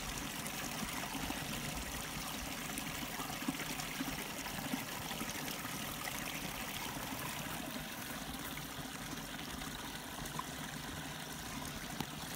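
Steady trickling and rushing of running water, like a small mountain stream.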